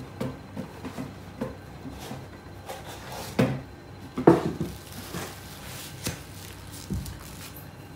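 Handling noise as a new hiking shoe is unstuffed: rustling and light knocks as the packing insert is pulled out of the shoe and the shoe bumps on a wooden crate. The loudest knocks come about three and a half and four and a half seconds in, with a dull thump near the end.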